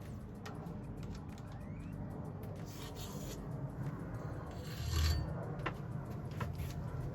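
Hands working on a bicycle: rubbing and scraping of parts and tools, twice, with scattered light clicks and a dull knock about five seconds in, over a steady low hum.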